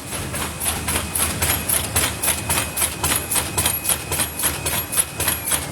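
Paper lid forming machine running, its mechanism clacking in a fast even rhythm of about five strokes a second over a low steady hum.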